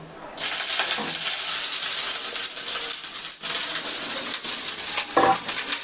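Chopped onions dropped into hot ghee on an iron tawa, sizzling loudly from about half a second in and frying steadily with fine crackles.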